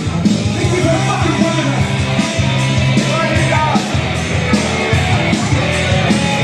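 Hard rock backing track playing loud, with a lead electric guitar bending notes over bass and drums.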